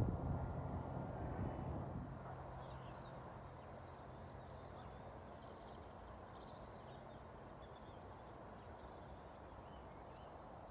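Background piano music fading out over the first two seconds, then faint, steady outdoor background noise with a few faint high chirps.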